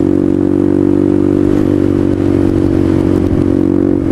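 Suzuki DR200's single-cylinder four-stroke engine running at a steady speed through a DG O-Series aftermarket exhaust while the bike is ridden. The note is low and even, with a slight wobble in pitch about one and a half seconds in.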